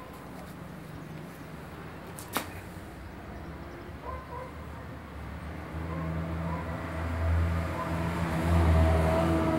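A motor vehicle's engine hum that grows louder from about halfway through, after a low steady background. A single sharp click comes a couple of seconds in.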